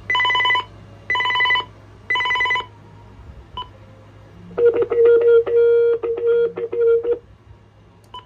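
RadioShack 43-1704 two-line cordless phone sounding its intercom tones: three short electronic beeps about a second apart, then a fast-flickering trill ring for about two and a half seconds.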